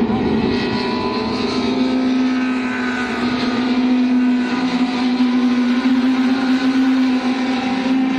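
Touring race car engines running at high revs, one steady engine note dominant and held throughout as the cars take a chicane.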